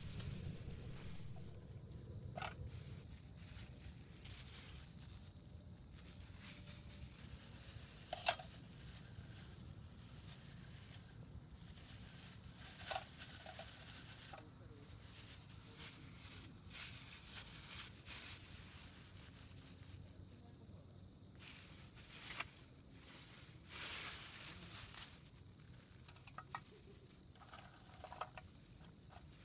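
Crickets trilling steadily in one continuous high tone, with scattered light taps and clicks; a sharp tap about eight seconds in is the loudest.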